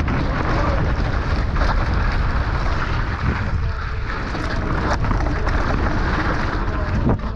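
Heavy wind buffeting the microphone, with a few sharp clicks and knocks.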